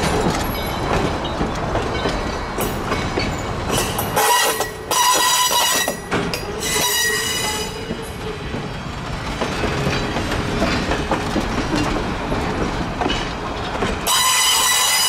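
Steam locomotive No. 40, a 2-8-2 Mikado, running with its passenger train under a steady rumble. A loud, shrill, ringing tone sounds about four seconds in for roughly two seconds, breaking once. Another starts near the end.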